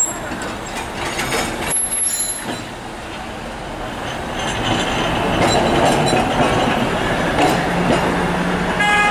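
Street traffic of vintage Peter Witt–type trams and cars rolling past, growing louder in the second half with a steady low hum near the end.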